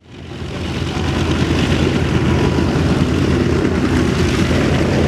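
North American B-25 Mitchell's two radial piston engines running on the ground, fading in over the first second and then holding at a loud, steady, rough drone.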